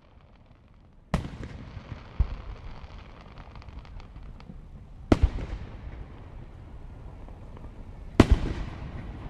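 Fireworks shells bursting: four sharp bangs, the first about a second in and the last near the end, each followed by a rolling echo that fades slowly, with faint crackling between them.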